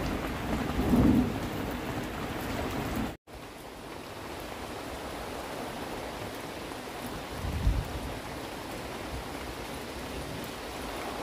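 Steady rain falling, with a low rumble about a second in and another past the middle. The sound drops out for an instant about three seconds in.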